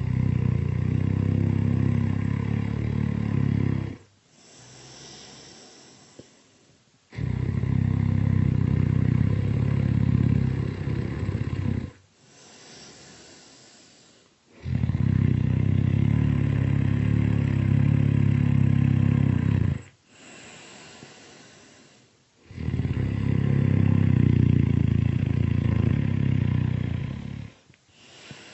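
Really loud snoring: four long, low, rattling snores about seven seconds apart, each followed by a quieter, breathy exhale.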